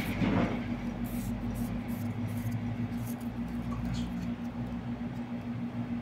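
Light clicks and scraping of a Fenix headlamp's body and plastic mounting bracket being handled and fitted together, with a burst of handling noise at the start and a few sharp clicks over the next two seconds. A steady low hum runs underneath.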